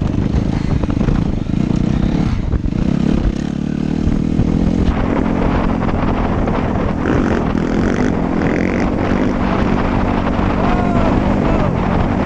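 Suzuki RM-Z250 dirt bike's four-stroke single-cylinder engine running under way as it is ridden, the pitch shifting with the throttle a few seconds in and then holding fairly steady.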